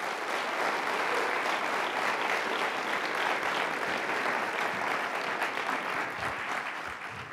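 Theatre audience applauding: dense, steady clapping from many hands that eases slightly near the end.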